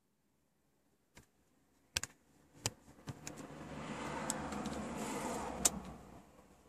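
Car key clicking in the ignition switch as it is turned, with a few sharp clicks and a light jingle of the key ring. From about three seconds in, a rushing noise with a low rumble swells and then fades away.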